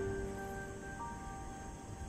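Background music with slow, held notes, a new note coming in about a second in.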